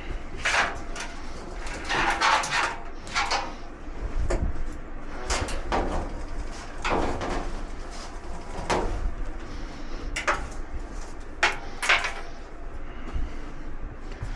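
Irregular knocks, clatter and short scrapes of dryer panels and parts being handled and moved during disassembly.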